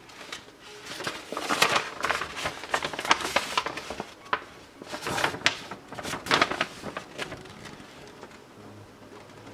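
A large paper information sheet rustling and crinkling as it is handled and turned over, in irregular bursts for most of the time, quieter near the end.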